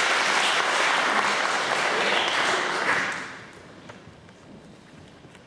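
Audience applauding. The applause dies away about three seconds in, leaving quiet room noise with a few faint knocks.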